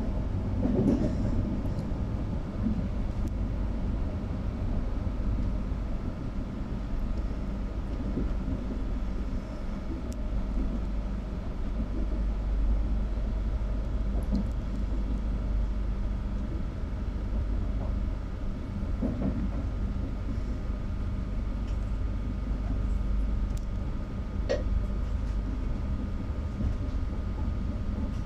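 Trenord TAF electric multiple unit heard from inside the coach while running: a steady low rumble of the wheels on the track, with a faint steady hum over it. A single sharp click sounds near the end.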